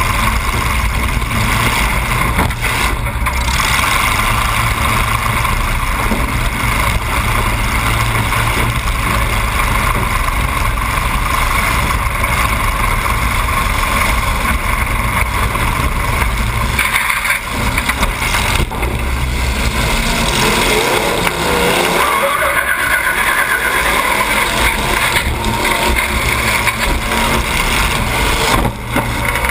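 Demolition derby car's engine running loud through open exhaust stacks poking up through the hood, heard from inside the car, revving up and down as it drives.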